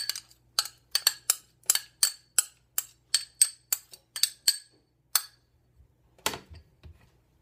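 Quick sharp clinks against a small ceramic bowl, about four or five a second, as ginger-garlic paste is knocked out of it onto raw goat chops. The clinks stop after about five seconds, and a single duller knock follows near the end.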